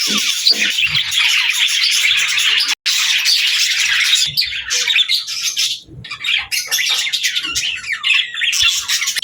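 Budgerigars chattering and warbling in a dense run of quick chirps and squawks. The sound cuts out for an instant about three seconds in, and the chatter is sparser in the second half.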